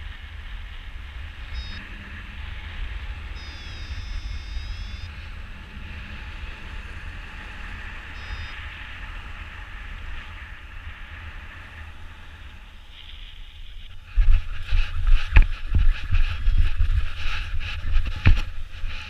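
Airflow rushing over the camera microphone in paragliding flight: a steady rush with a deep rumble. About 14 seconds in it turns much louder and gusty, with sharp buffeting hits, as the glider swings through steep banked wingover turns.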